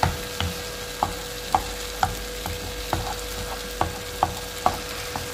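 A spatula stirring tomato sauce and soft cheese in a non-stick frying pan, knocking and scraping against the pan about twice a second over a low, steady sizzle.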